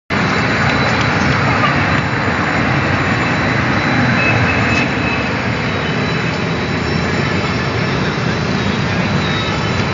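Steady noise of a moving train running on the tracks, with no horn blast.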